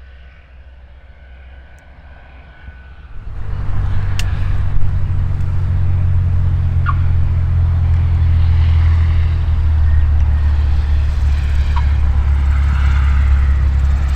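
Light propeller aircraft's piston engine running, coming in suddenly about three seconds in and then staying loud and steady as a low drone.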